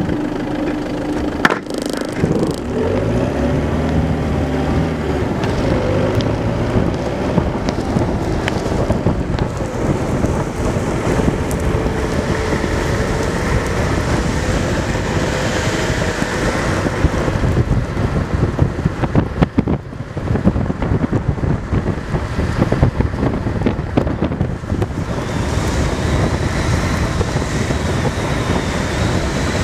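Wind buffeting the microphone over the roll of longboard wheels on asphalt at downhill speed: a steady rushing noise. A single sharp knock sounds about a second and a half in.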